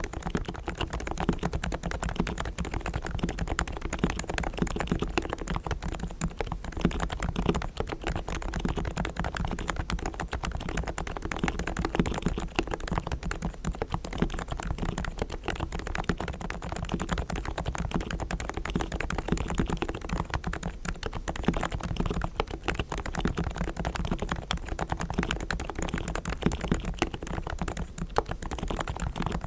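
Realforce R3 tenkeyless Topre electrostatic-capacitive keyboard with 45 g silent switches, fully lubricated with Krytox and foam-dampened, being typed on continuously: a dense, fast stream of soft keystrokes.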